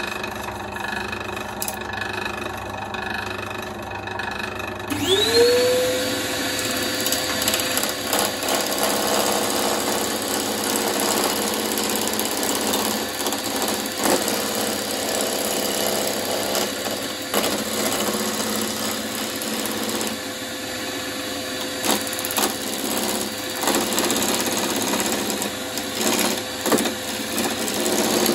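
An electric woodworking machine starts about five seconds in, its motor whine rising quickly in pitch and then holding steady, with rough cutting noise and scattered knocks over it.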